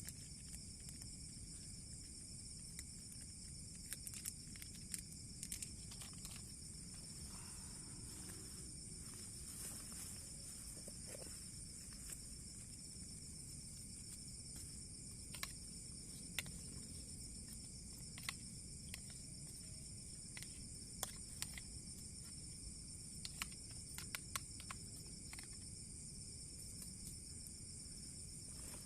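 Steady insect chorus holding two high shrill pitches, with scattered light clicks and knocks throughout.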